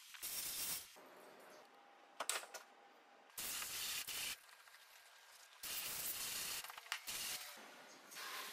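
Hand scrubbing of soapy car paint with a cloth and a brush: three separate rasping strokes, each about a second long, with a few light clicks between them.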